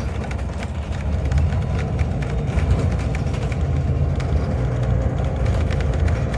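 Inside a city transit bus under way: a steady low rumble of engine and road noise, growing a little louder about a second in, with scattered small rattles and clicks.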